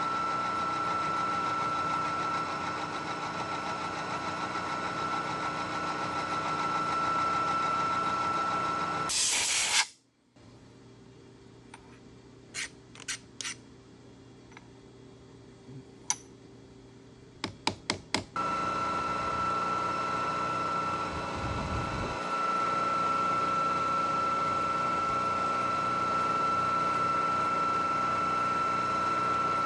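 Milling machine running and cutting A2 steel, with a steady high whine. About a third in it breaks off after a short loud hiss, leaving a few sharp clicks and knocks, then the running and whine start again abruptly just past halfway.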